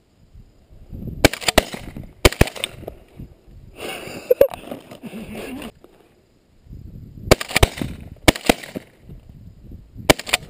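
Shotgun shots from several hunters in a field: sharp reports in clusters of two or three, a few seconds apart, each with a short ringing tail.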